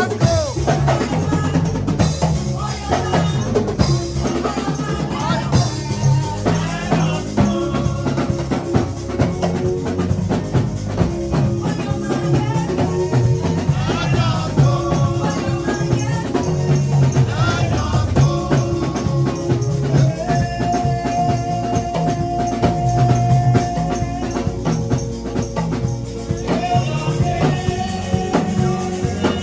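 Live praise music from a band, with a drum kit and tambourine keeping a steady beat under a strong bass and a held melody line, and voices singing.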